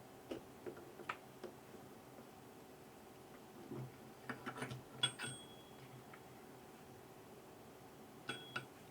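Light clicks and taps of small hard parts and tools being handled, with a cluster of clinks about halfway through and another pair near the end, a couple of them leaving a brief high metallic ring.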